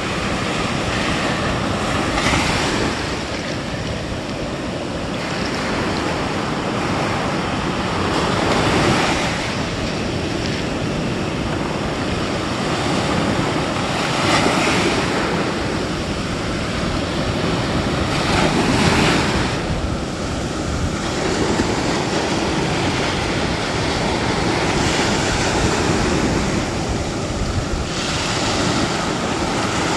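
Sea waves breaking close to shore and washing up over a sandy beach, the surf swelling louder every four to six seconds as each wave comes in.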